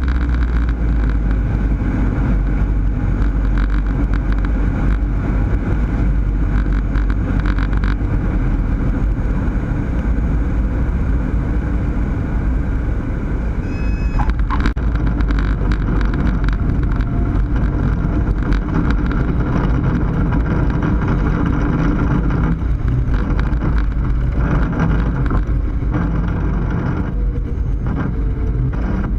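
Cessna 152's four-cylinder Lycoming engine and propeller running steadily in flight, a constant low drone.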